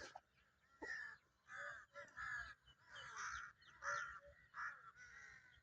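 Crows cawing, a series of about seven short, faint caws one after another.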